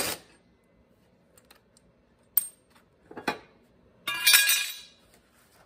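Metal clinks and knocks from a mower blade bolt and socket being handled on a cordless impact driver, with a short metallic rattle about four seconds in.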